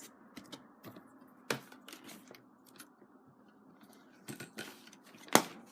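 Doll packaging being handled and undone: scattered small clicks and rustles, with a sharp click about a second and a half in and the loudest one near the end.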